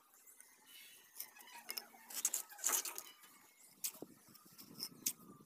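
Bricklaying by hand: a steel trowel scraping mortar and tapping bricks, a string of short clinks and scrapes, the loudest a little over two seconds in.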